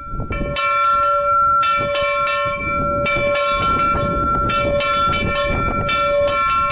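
A bell rung by hand. The clapper strikes again and again in quick clusters of two or three, and the bell's tone rings on steadily between strikes.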